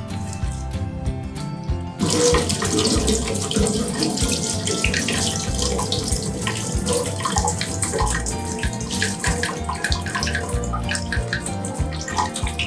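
Water running from a tap and splashing, starting suddenly about two seconds in.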